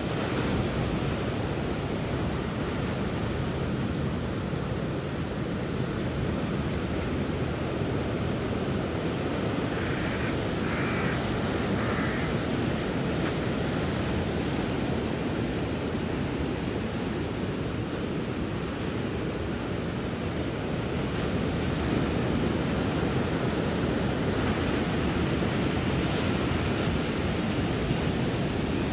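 Steady rushing noise of surf breaking on the beach under a typhoon swell, mixed with wind, with no single wave standing out.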